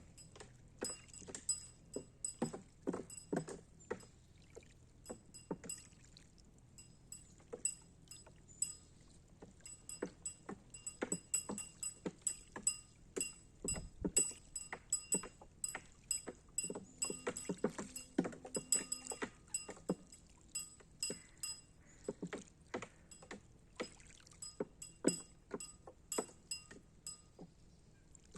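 Irregular metallic clinking and knocking, several small strikes a second at times with a short bright ring, from a floating buoy sculpture's metal parts knocking together as it rocks on the water.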